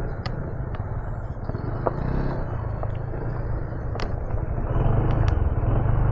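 Honda ADV 160 scooter's single-cylinder engine running at low speed on a rough dirt trail, with a steady rumble from the tyres and chassis over the uneven ground and a few sharp clicks. It grows a little louder about five seconds in.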